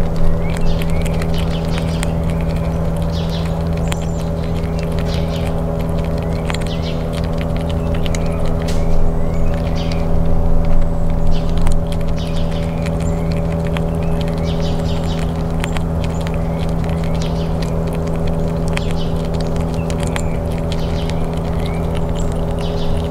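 Gray squirrel eating peanuts close up, with a run of small crisp clicks from its chewing, louder about ten seconds in. Behind it runs a steady low machine hum with several held tones, and birds chirp faintly now and then.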